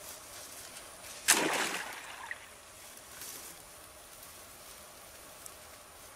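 A crawfish trap splashing into the creek about a second in, one short splash that dies away over about a second.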